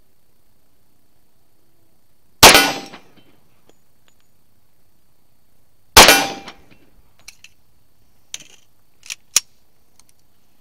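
Two shots from a Rock Island Armory 10mm 1911 pistol, about three and a half seconds apart, each with a short decaying tail. A few light clicks follow.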